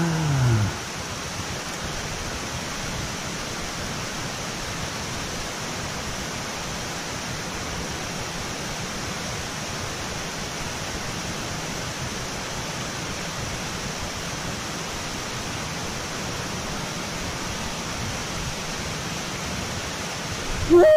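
Steady rush of water pouring through a dam's spillway gates into the river below, an even, unbroken sound.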